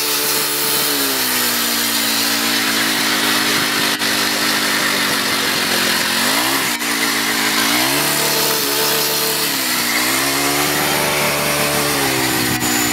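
Leaf blower running steadily as it inflates a large balloon through its nozzle, its pitch dipping and coming back up several times.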